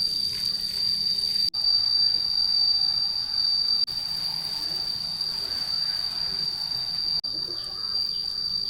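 Insects chirring in a steady, unbroken high-pitched drone. The sound drops out for an instant three times, at about 1.5, 4 and 7 seconds.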